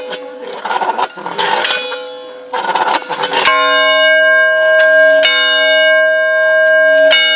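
A large bell rung by hand: struck about three and a half seconds in, then twice more about two seconds apart, each stroke ringing on with a steady, many-toned hum.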